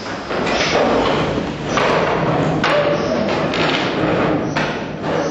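Chairs knocking and bumping, and feet shuffling, as a roomful of seated people stand up together; several sharp knocks stand out over a continuous clatter.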